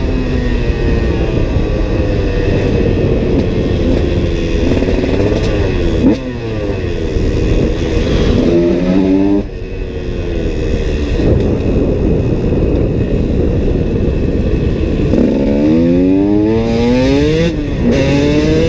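KTM SX 125 two-stroke single-cylinder motocross engine under load as the bike is ridden, its pitch repeatedly rising as it revs out and dropping as the throttle closes or it shifts, three or four times, over a dense rushing noise.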